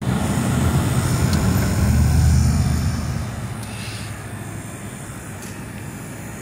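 Loud, low mechanical rumble that drops off about three seconds in, leaving a quieter, steady running noise.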